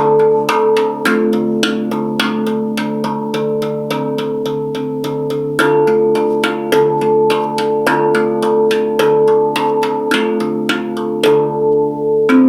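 Handpan played with rapid, even hand strikes, about four a second, each note ringing on under the next so the tones overlap in a sustained drone.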